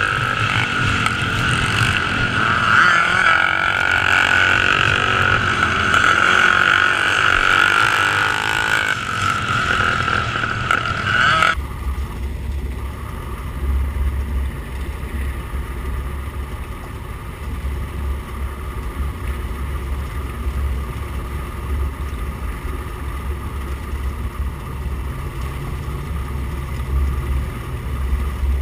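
Racing motorcycle engines running and revving. About eleven seconds in the sound cuts abruptly to a duller, lower rumble that comes and goes.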